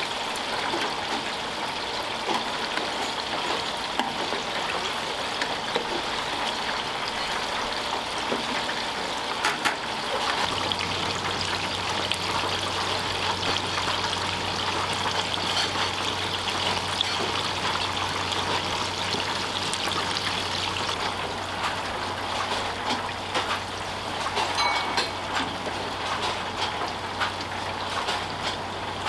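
Karaage (Japanese fried chicken) deep-frying in hot oil: a steady sizzle thick with small crackles. A low steady hum joins about ten seconds in.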